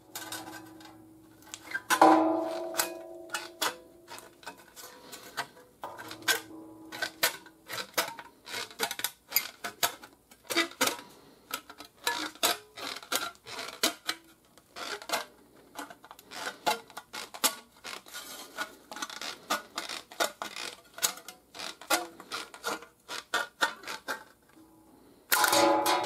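Compound-action aviation tin snips cutting thin sheet steel from an old car hood: a rapid, uneven run of crisp snipping clicks with light metallic clinks. About two seconds in the sheet metal gives a loud clang that rings briefly, and it rings again more faintly near six seconds.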